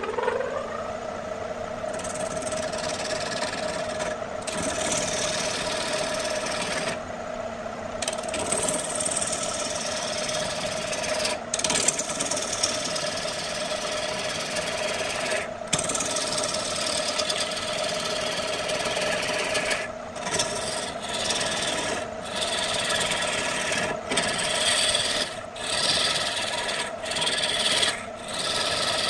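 Electric wood lathe motor coming up to speed with a rising hum at the start, then running steadily while a hand-held turning tool cuts into the spinning log blank. The cutting is a rough scraping rasp that breaks off and resumes again and again as the tool is lifted and reapplied, more often in the last few seconds.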